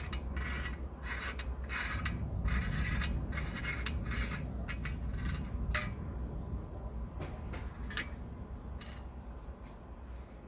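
Threaded metal burner parts of a Hasag 351 L petrol lamp being unscrewed by hand: dry metal threads grate and scrape in short rasping strokes, about two a second, with a sharp click near six seconds. After that come only a few faint clicks as the loosened parts are lifted off.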